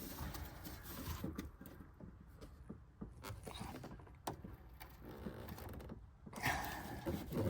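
Hands twisting the metal cap on the back of a headlight housing a quarter turn to remove it: light scraping and scattered small clicks.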